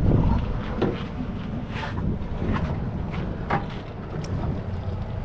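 Wind buffeting the microphone on an open boat at sea, a steady low rumble, with scattered short knocks and taps throughout, the strongest right at the start.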